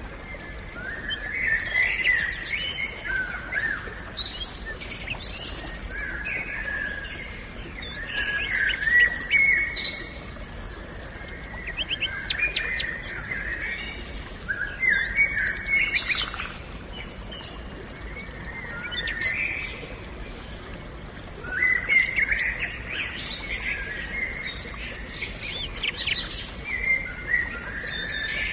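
Several birds singing and chirping in a forest, their songs of quick notes and trills overlapping and coming in waves, over a faint steady background hiss.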